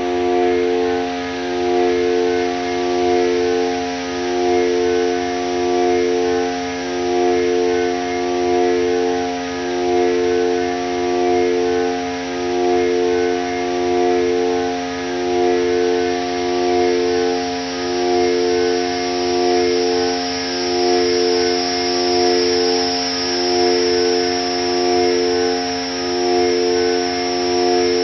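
Korg Volca Modular synthesizer playing an FM drone: a steady low tone under two upper tones that pulse in turn about every two seconds, so the sound swells and ebbs evenly. A high hiss above it grows brighter about halfway through.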